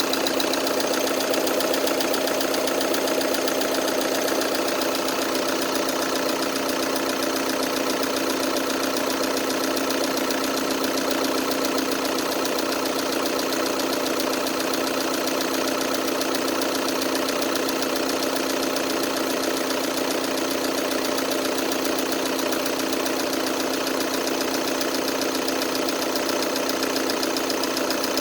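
2012 Volkswagen Tiguan 2.0 TDI 140 hp four-cylinder diesel engine idling steadily with a rapid, even clatter. The owner is unsure whether this noise is normal for this engine.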